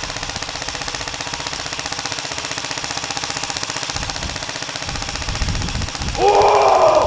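UTG Model 4 Tactical airsoft electric rifle firing full auto: a steady, rapid stream of shots with no pause. Near the end a man yells loudly over the firing.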